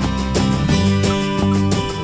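Background music: strummed acoustic guitar chords in a steady rhythm, about three strums a second.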